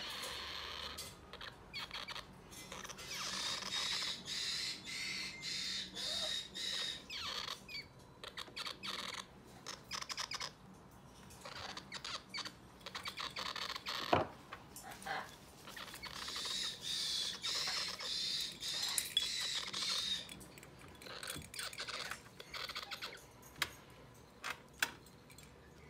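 Yellow-crowned Amazon parrot chicks begging for food, giving rapid pulsing calls in repeated bouts. There is a single sharp knock about halfway through.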